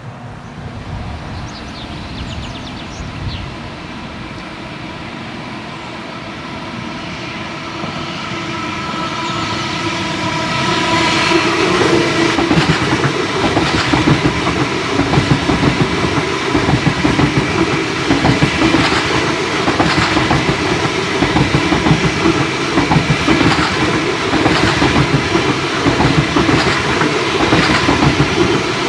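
Siemens ICE 4 (class 412) trainset approaching and then passing close by, growing louder until about a third of the way in, then a steady fast clatter of wheels and bogies. The audible clattering comes from its unpowered bogies with inside axle bearings; the powered bogies with outside bearings sound drier.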